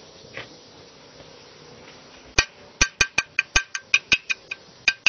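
Metal parts clinking: a quick, uneven run of about fifteen sharp metallic taps over three seconds, starting a little over two seconds in.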